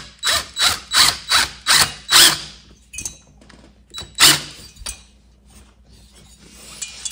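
Ratcheting screwdriver clicking as screws are backed out of a chainsaw cylinder's intake: a quick run of about seven strokes, roughly three a second, then a few single strokes.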